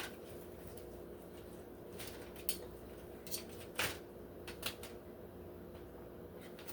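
Knife and fork clicking against a plate while a piece of chicken is cut and picked up: about half a dozen short, light clicks scattered through the middle, the loudest a little before halfway, over a faint steady hum.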